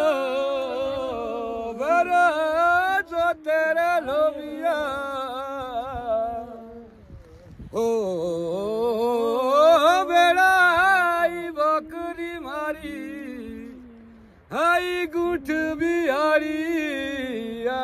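A man singing a folk song without instruments, in long, wavering, drawn-out phrases with two short breaks for breath, near the middle and again about three-quarters through.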